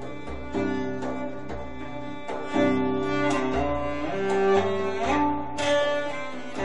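Orchestral film music from a vinyl LP, played through hi-fi loudspeakers: a solo cello line over strings, with drum strikes about once a second.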